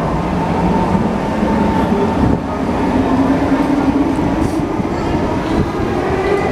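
MRT metro train at a station platform: a steady rumble and hum, with a low tone rising slowly in pitch for a few seconds from about a second and a half in.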